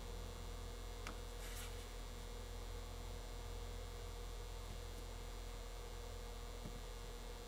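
Steady low electrical mains hum under quiet room tone, with two faint clicks between one and two seconds in.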